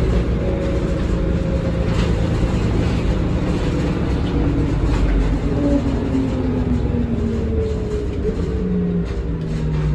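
1986 MAN SL202 bus with a ZF Ecomat automatic gearbox, driving and heard from inside the saloon: a steady diesel drone. Several whining drivetrain tones slide down in pitch through the second half.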